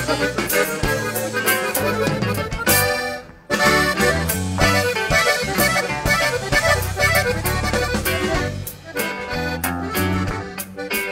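Live norteño band instrumental break between verses: a button accordion plays the lead melody over an electric bass. The music briefly cuts out about three seconds in, then the band comes back in.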